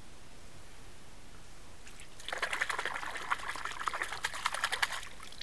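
Water splashing around an asp held by hand in shallow water during its release. After about two seconds of quiet comes a quick, irregular run of splashes lasting nearly three seconds, which then stops.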